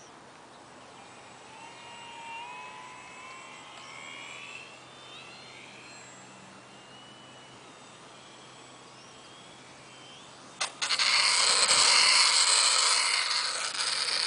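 Motor and propeller of an RC foam 3D aerobatic plane: a faint whine changing pitch with the throttle while it flies at a distance, then, about eleven seconds in, a sudden loud buzzing rush as the plane passes close and low, easing off in the last second.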